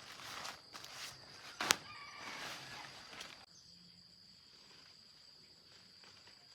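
Outdoor rustling and footstep-like handling noises with one sharp knock, stopping abruptly about halfway through, over a steady high insect drone.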